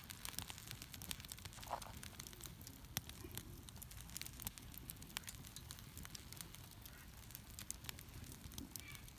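Wood campfire crackling, with irregular sharp snaps and pops over a low, even rumble.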